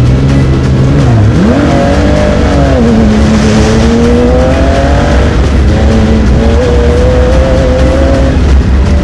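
Off-road race buggy's engine, heard onboard, idling and then revving up about a second in as the car pulls away from a standstill. It climbs through the gears, the pitch rising and then dropping abruptly at each shift, about three times.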